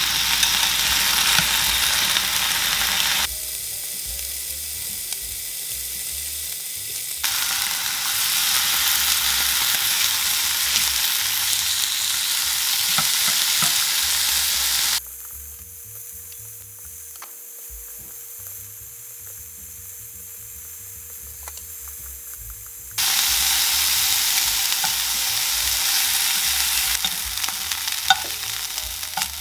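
Thin slices of beef sizzling as they sear in olive oil in a nonstick frying pan. The sizzle turns quieter and louder again abruptly a few times, and near the end metal tongs click against the pan as the meat is lifted out.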